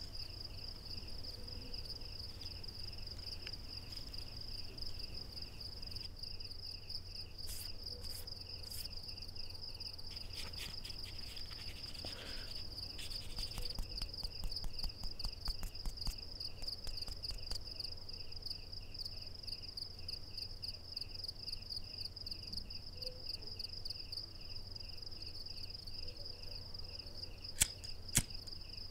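Crickets chirping steadily in a continuous pulsing trill, over a low hum. Soft rustling from hands rolling a cigarette comes in the middle, and near the end two sharp clicks of a hand lighter being struck.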